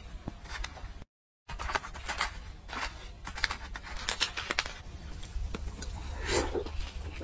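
A plastic bag crinkling as a crumbly topping is shaken out of it over braised meat, in short scattered rustles, with a brief dropout about a second in. Near the end comes a louder bite into a large piece of braised pork belly.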